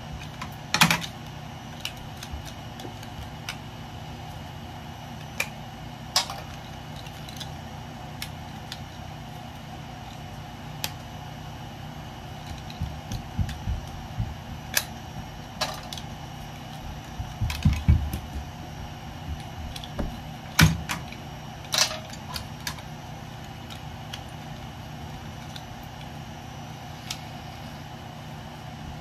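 Irregular clicks and knocks of metal parts and hand tools as electrical scrap is pulled apart by hand, with a busier run of small knocks around the middle and a few sharper strikes, over a steady background hum.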